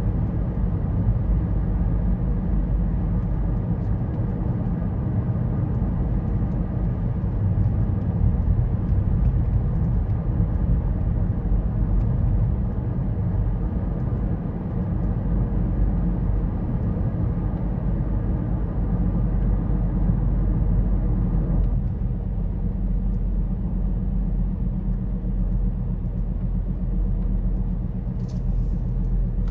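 Road and engine noise heard from inside a moving car's cabin: a steady low rumble with tyre hiss over it. The hiss eases about three-quarters of the way through while the rumble carries on.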